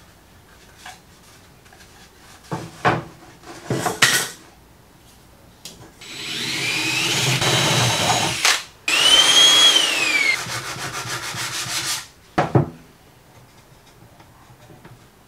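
Cordless DeWalt drill boring a hole into MDF in two runs a few seconds long, with a short pause between. The motor's whine rises as it spins up and drops as the bit bites. A few sharp wooden knocks come before and after as the MDF pieces are handled.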